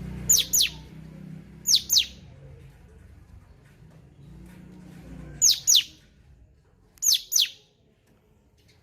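A cucak cungkok songbird calling four times, each call a pair of sharp, quickly falling whistled notes. The calls come in two groups: two close together in the first two seconds, then two more in the second half.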